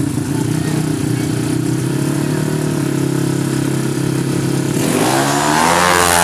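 Tuned 200cc drag-racing motorcycle engine held at steady revs, then about five seconds in revving sharply upward as the bike launches off the line.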